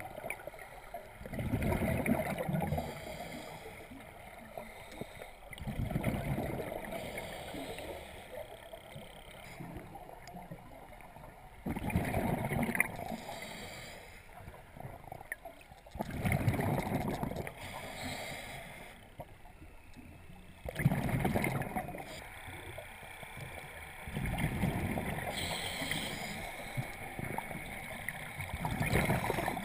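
Scuba diver breathing through a regulator underwater: a burst of exhaled bubbles gurgles out about every four to five seconds, with quieter hissing inhalations between.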